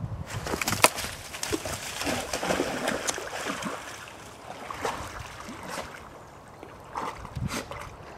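A flat-coated retriever splashing in water: irregular splashes and sloshing, busiest in the first three seconds, with another burst about seven seconds in.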